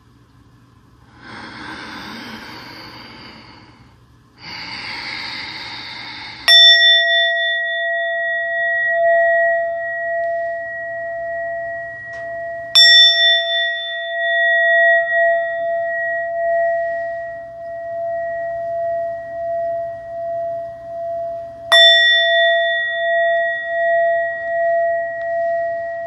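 A singing bowl struck three times, each strike ringing on as a steady, wavering tone that is still sounding when the next strike comes. It marks the end of the final resting meditation.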